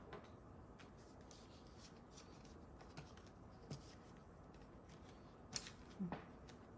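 Near silence with a few faint, scattered clicks: colour pencils being picked up and set down on the table.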